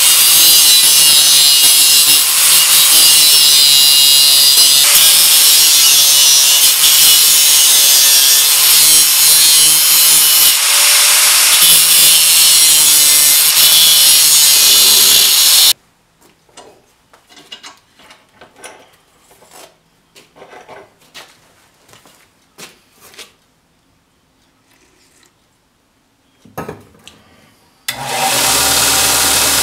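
Angle grinder cutting into the edge of a domed steel plate, a loud hissing grind whose motor pitch wavers as the disc loads in the cut. It stops about halfway through, leaving a quiet spell with a few faint clicks and knocks. Near the end a belt grinder starts up with a low hum.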